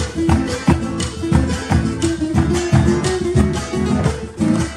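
Live band playing instrumental Argentine folk music: a nylon-string acoustic guitar picks a melody over other guitars, a bass line and steady percussion.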